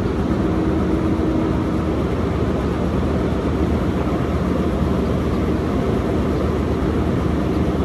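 Hydraulic excavator's diesel engine running steadily, an even low drone with no change in speed.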